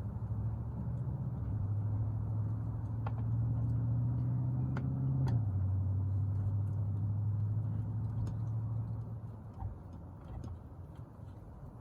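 A motor vehicle's engine hum passing by: it builds, drops in pitch about five seconds in, and fades out by about ten seconds. A few light clicks of a screwdriver working speaker screws can be heard over it.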